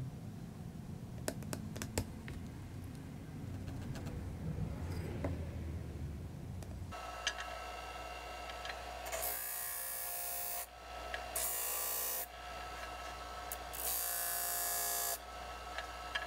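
A low hum with a few light taps, then an electric benchtop disc sander running with a steady whine. A small wooden block is pressed against the spinning sanding disc three times, each a loud sanding hiss of one to one and a half seconds.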